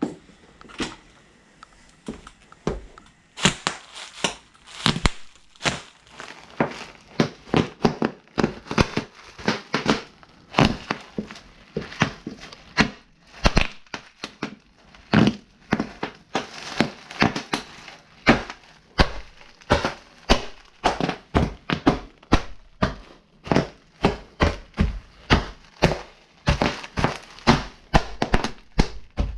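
Bubble wrap bursting under stomping cowboy boots: sharp, irregular pops, only a few in the first three seconds, then coming thick and fast, several a second.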